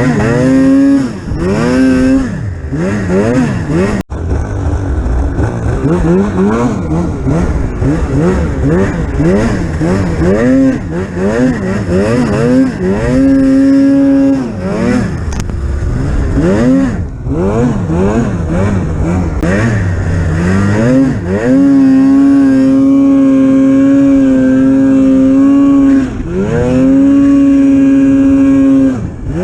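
Polaris Pro-RMK 800 snowmobile's two-stroke twin engine revving up and down over and over, then held at high revs for two long stretches in the second half.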